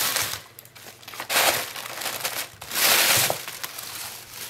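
Paper and packaging crinkling and rustling as sticker sheets are handled and laid into a cardboard box, with two louder crinkles about a second and a half and three seconds in.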